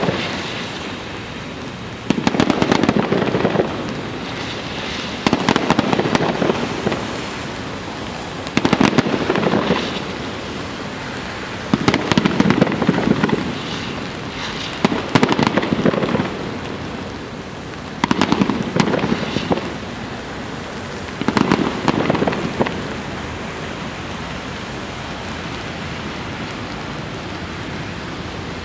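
Aerial fireworks going off in a series of about seven loud bursts of rapid crackling bangs, roughly one every three seconds. After the last burst, about 22 seconds in, only a steady hiss remains.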